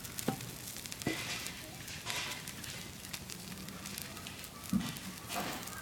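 A small burning boat floating on water, its fire crackling and sizzling: a steady hiss with scattered sharp pops and a few short flare-ups.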